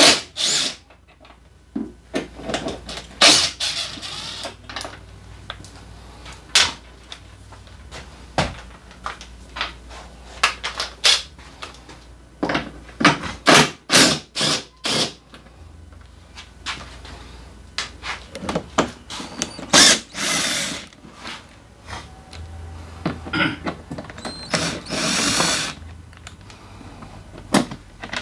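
Cordless drill-driver spinning screws out of a scooter's plastic front cowl in several short runs, with many sharp clicks and knocks of screws and plastic between them.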